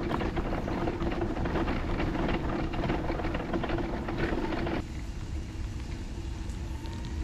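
Small electric mobility vehicle driving along a wet path: a steady motor whine over the rattle of its wheels on paving bricks. About five seconds in this cuts to a quieter, smoother rolling.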